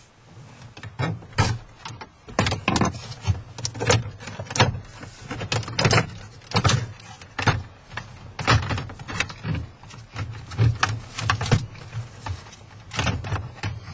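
Dashboard trim panel around the car radio being pried off and handled: irregular plastic clicks, snaps and knocks, a few each second.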